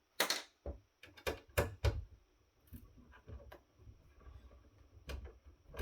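Sharp clicks and knocks of metal parts and hand tools being handled while a power supply is unscrewed from an electronics chassis. Several come close together in the first two seconds, the first with a brief scrape, then fainter clicks and one more knock about five seconds in.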